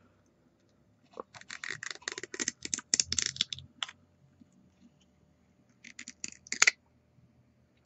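Fingers working the cap and seal off a tube of post-shave cream: a run of rapid, scratchy plastic clicks and scrapes, then a shorter burst of them about six seconds in.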